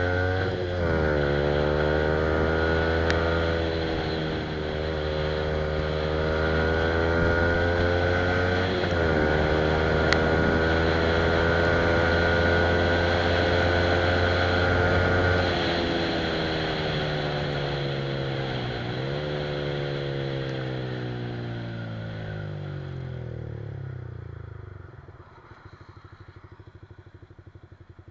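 Yamaha R15's single-cylinder engine through an Akrapovic exhaust, pulling up through the gears: its pitch climbs and dips briefly at each upshift, about a second in and again about nine seconds in. Past the halfway mark it comes off the throttle, the pitch falling steadily with one more dip for a downshift, and near the end the engine note drops away to a quiet low run as the bike slows.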